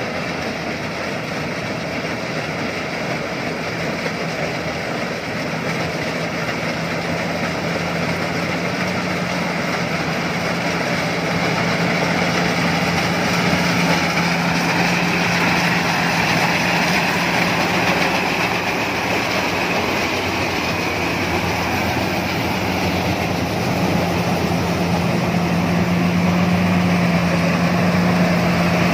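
Iseki HC80 rice combine harvester running steadily while cutting rice, its engine hum and machinery noise growing louder over the first dozen seconds as it comes closer.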